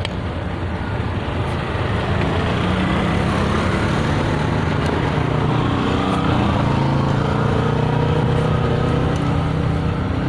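A truck's engine running steadily, its pitch drifting slowly up and down.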